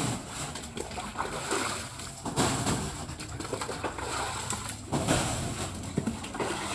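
Wet mud and water being scooped and splashed with a bucket, in a few separate bursts.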